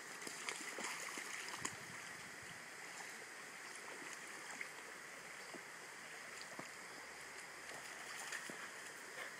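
Shallow stream running over stones, with a collie's paws splashing as it steps into the water and wades through it; the splashes are densest in the first two seconds.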